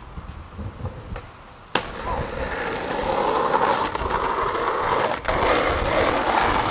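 Skateboard wheels rolling over asphalt: a steady, gritty rumble that starts after a sharp clack about two seconds in, with another click about five seconds in.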